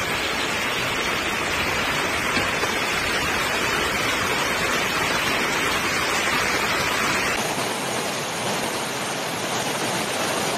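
Rushing floodwater and heavy rain, a steady loud roar of water; about seven seconds in it changes abruptly to a somewhat softer, thinner rush as water pours over a kerb onto a flooded road.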